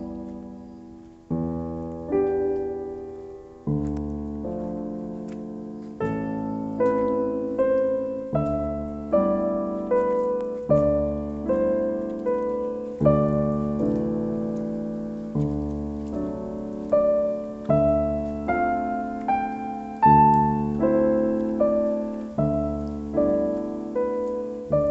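Background piano music: a slow melody over held chords, each note struck and fading away.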